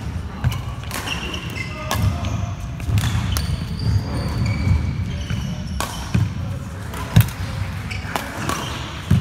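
Badminton rally: sharp racket-on-shuttlecock hits every second or so, with trainers squeaking and thudding on the wooden court floor over a steady low hall rumble.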